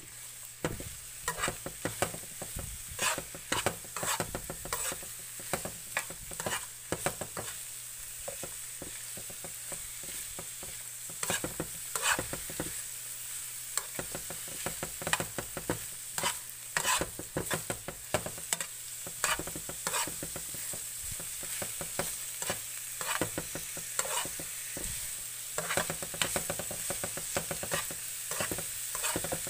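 Napa cabbage, carrot and hot dog slices sizzling in a frying pan while being stir-fried, with a steady hiss. The utensil scrapes and knocks against the pan in many short, irregular strokes.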